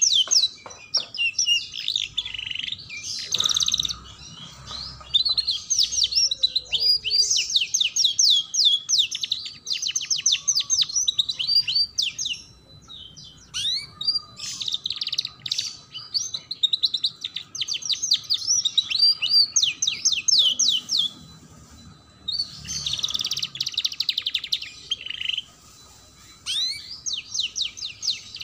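Yellow domestic canary singing: long phrases of fast trills and chirps, broken by a few short pauses.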